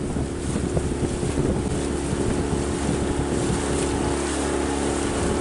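A small boat's outboard motor running steadily at cruising speed, over a steady rush of wind and water.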